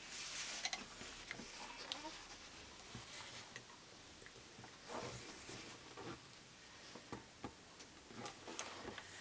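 Faint rustling of a fabric binding strip being folded and pressed in half with a hand iron on a pressing mat, with scattered light taps and clicks as the iron and hands move along it.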